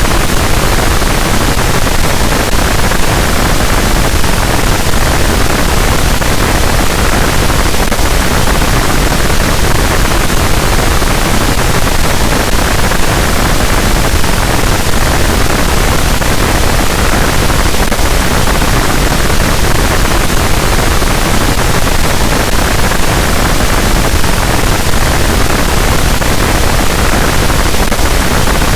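Harsh noise wall: a dense, loud, unchanging wall of distorted static noise filling the whole range from deep rumble to high hiss, with no rhythm or pitch.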